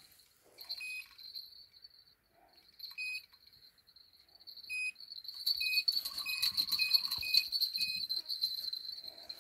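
Crickets chirring steadily, with short squeaks now and then and, from about halfway, a denser run of clicking and repeated short squeaks from a spinning reel's drag as a hooked Wels catfish takes line.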